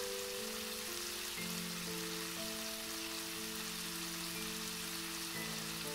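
Small prawns sizzling in hot oil in a frying pan on a low flame, a steady fine crackle. Soft background music of slow, held notes plays over it.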